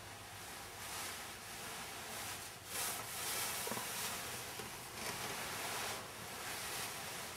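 Rustling and swishing of a full ball gown's skirt, with tulle, lining, a petticoat and a hoop skirt underneath, as it is swayed and handled; it comes in several soft swells, loudest about three seconds in.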